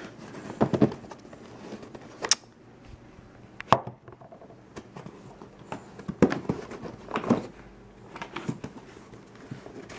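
Unpacking parts by hand: scattered sharp clicks and knocks over a soft rustle of packaging, with the loudest clicks about two and four seconds in.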